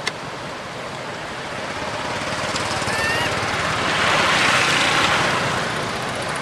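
Steady outdoor noise haze that swells about four seconds in, with a click at the start and two short high chirps about three seconds in.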